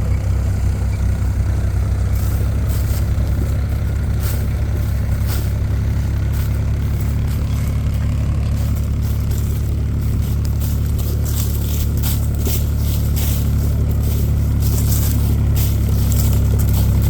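Heavy diesel engine running steadily, with short clicking and scraping rattles over it that come more often in the second half.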